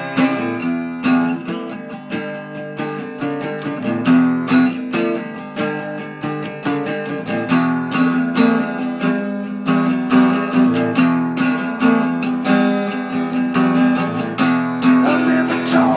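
Strummed acoustic guitar playing a steady rhythm in an instrumental passage of a song, with no singing.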